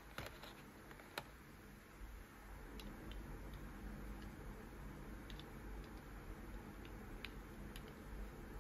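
Faint small plastic clicks and taps from handling a wireless-earbud charging case and its box insert: a few sharper clicks in the first second or so, then occasional single ticks.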